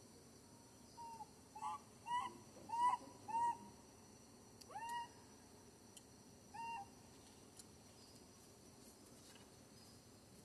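Infant macaque crying: about seven short, high-pitched calls in the first seven seconds, each bending in pitch, the loudest around three seconds in.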